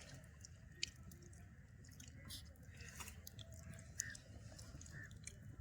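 Someone chewing food close to the microphone, a faint run of irregular wet mouth clicks and smacks.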